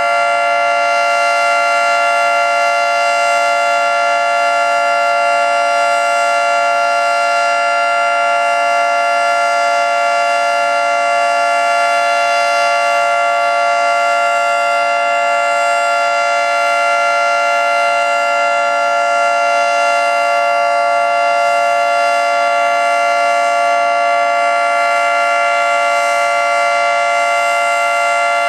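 Federal Signal 2T22 dual-tone warning siren sounding a steady Alert signal: a loud two-tone chord held at constant pitch, with no rise or fall.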